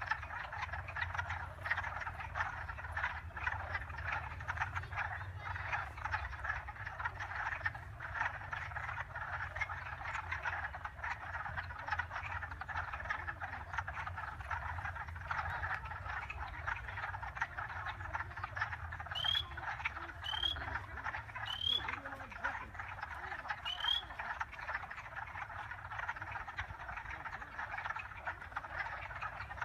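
A dense chorus of many frogs calling at once, rapid overlapping croaks with no break, over a low steady rumble. About two-thirds of the way through, four short, high, rising chirps stand out above the chorus.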